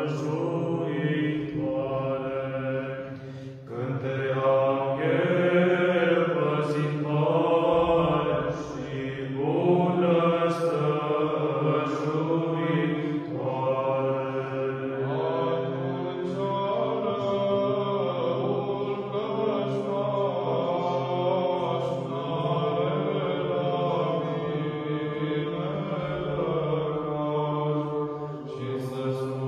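Small all-male choir of four Orthodox monks chanting a hymn unaccompanied, a steady low drone held beneath the moving melody, with a short break between phrases about three and a half seconds in.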